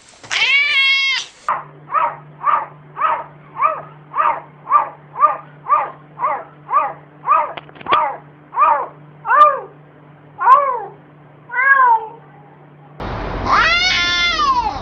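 Domestic cat meowing: one long meow, then a string of short, rising-and-falling meows repeated about twice a second. Near the end comes another long, drawn-out meow over a noisier background.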